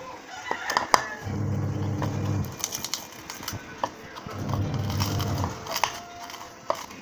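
Metal spoon clicking and scraping against a plastic bowl as salted mango slices are stirred, with a sharp knock about a second in. A low, humming sound swells in for about a second at a time, twice.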